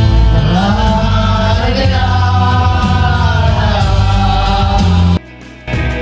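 A woman singing a gliding melody over a loud backing track with heavy bass; the sound cuts off abruptly about five seconds in.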